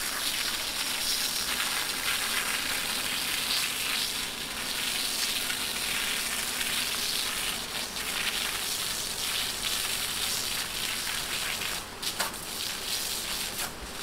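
High-pressure spray jet from a long hand-held spray lance, hissing steadily as it is aimed up into the tree crowns, with a few brief dips near the end.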